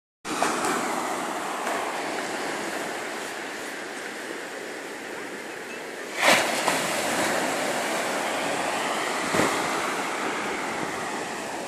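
Small sea waves breaking and washing up a sandy shore: a steady surf hiss, with brief louder surges about six and nine seconds in.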